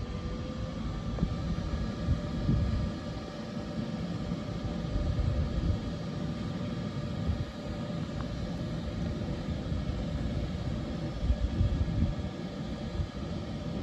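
DB Class 185 (Bombardier TRAXX) electric locomotive standing with its cooling fans and electrical equipment humming steadily, a few faint even tones held over an uneven low rumble.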